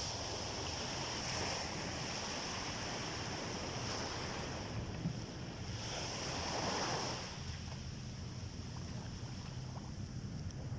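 Sea waves washing onto a beach: a steady surf wash that swells about a second in and again around six to seven seconds in, with a low rumble of wind on the microphone.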